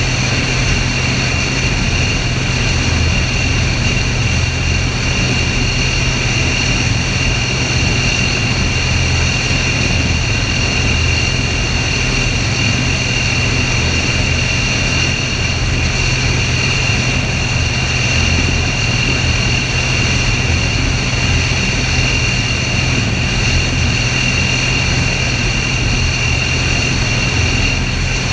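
Mi-28 attack helicopter in flight, heard from a camera mounted on its fuselage: the steady noise of its rotors and twin turboshaft engines, a low drone with a high whine over it, unchanging throughout.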